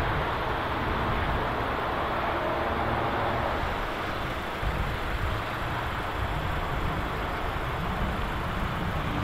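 Volkswagen Polo Blue GT's 1.4-litre TSI four-cylinder idling steadily with the car standing still, under a steady hiss.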